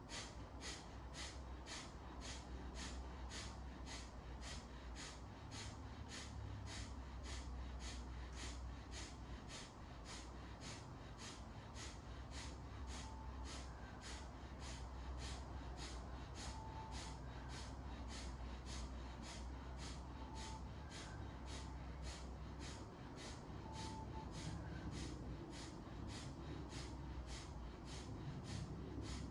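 Kapalabhati breathing: short, sharp exhalations forced out through the nose, about two a second in an even rhythm, with the inhales passive between them.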